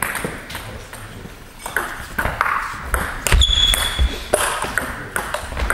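Table tennis ball clicks: the celluloid-type ball being struck by bats and bouncing on the table in quick, irregular taps, with a brief high squeak about three seconds in.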